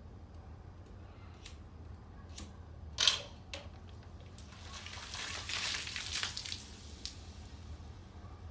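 Coca-Cola and Mentos geyser erupting: a sharp burst about three seconds in, then a couple of seconds of fizzing spray as the foaming soda splatters onto the tabletop.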